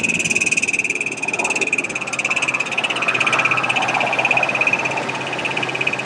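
Toyota 3.4 L V6 idling just after start-up, with a fast, even rattling knock. It sounded like a rod knock but comes from a cracked flex plate at the rear of the engine.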